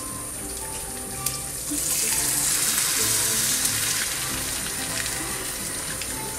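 Egg omelette frying in oil in a nonstick pan, a steady sizzle that swells much louder about two seconds in as the omelette is turned over, then eases back.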